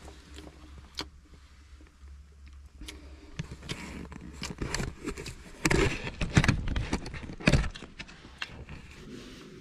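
Close handling noise of a hand-held action camera being moved around: scattered clicks, rustles and scrapes over a low rumble, with heavier low thumps about six and seven and a half seconds in.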